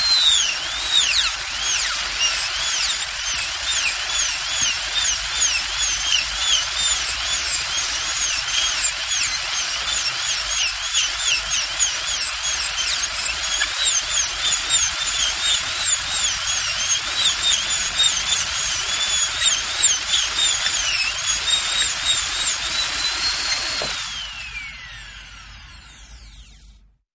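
Dentist's drill whining at a high pitch, the pitch dipping and recovering again and again. About 24 seconds in it winds down, the pitch falling as the sound fades out.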